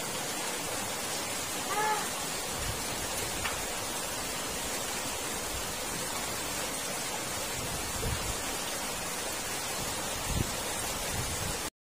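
Steady rush of water flowing through a drainage culvert beneath a steel grate. A short high call sounds about two seconds in, and a couple of low thumps come near the end. The sound cuts off suddenly just before the end.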